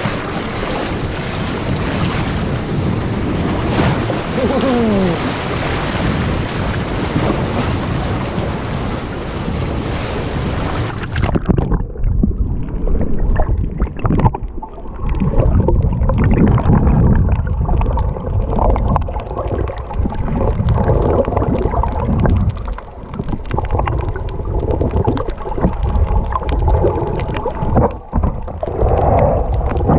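Wind on the microphone and sea water slapping at a pontoon. About eleven seconds in, the sound suddenly goes dull and muffled as the microphone goes under the water: underwater sloshing and bubbling, with a faint steady hum through the middle.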